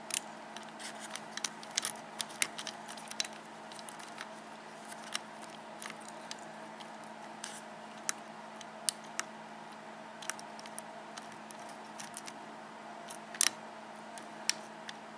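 Lock pick working inside an Abus 72/40 pin-tumbler padlock: faint scattered ticks and scratches of the metal pick against the pins, with one louder click near the end.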